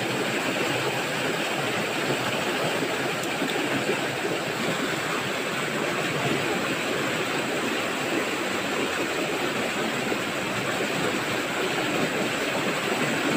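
River water rushing steadily over rocks in a small cascade, running strong after rain.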